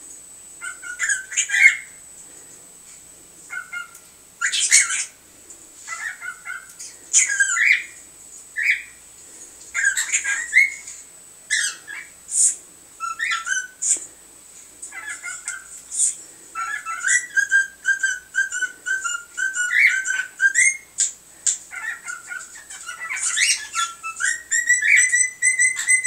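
Cockatiels chirping, squawking and whistling in many short calls, with a longer whistled phrase about two-thirds of the way in and another near the end. The calls come partly from cockatiel videos playing back and partly from a pet cockatiel mimicking them.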